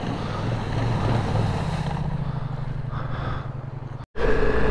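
Big adventure motorcycle's engine running as it rides through a shallow rocky creek crossing, with water splashing. A little after four seconds in, the sound drops out for a moment and switches to the steady engine and wind noise heard from on a moving motorcycle.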